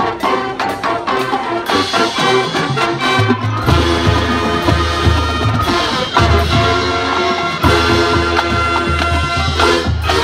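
Marching band playing a jazz arrangement, brass over a rhythmic percussion beat. Deep bass notes join about a third of the way in, filling out the full band sound.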